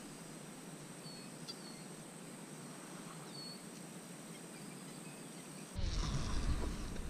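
Faint outdoor ambience: a steady high-pitched insect hum with a few short bird chirps. Near the end a louder low rumble comes in suddenly, like wind or handling on the microphone.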